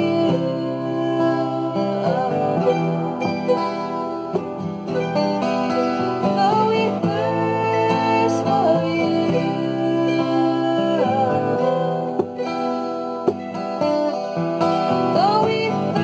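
Acoustic guitar and mandolin playing a slow worship song, with a woman singing over them.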